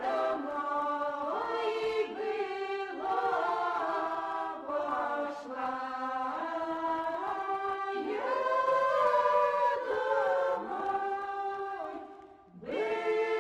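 Background music: a choir singing slow, held chords that change every second or so, with a short break near the end before the singing goes on.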